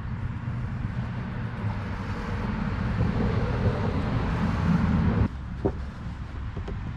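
Steady low outdoor background rumble that swells in the middle and breaks off abruptly about five seconds in, then carries on more quietly, with a couple of short sharp clicks just after the break.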